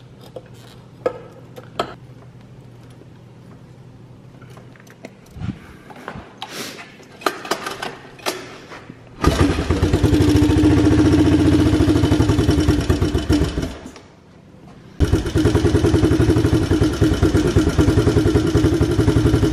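Clicks and knocks of hands and tools on the quad, then the single-cylinder four-stroke engine of a 1984 Suzuki LT 185 fires up about nine seconds in and runs for around five seconds, stops, and is started again for another five seconds or so. It is being test-started with a newly fitted fuel pump.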